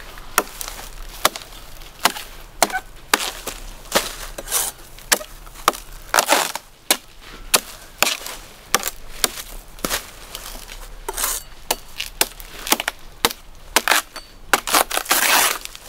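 A heavy knife chopping into coconut husk in a run of sharp, irregular strokes, about one or two a second, broken by a couple of longer scraping passes.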